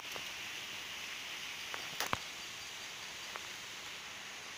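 Steady background hiss, with a few faint sharp clicks: one just after the start, two close together about two seconds in, and one more later.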